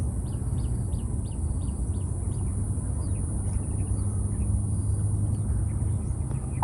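A small bird giving short, high, downward chirps, about three a second at first, then sparser. Under it runs a steady low rumble and a constant high hiss.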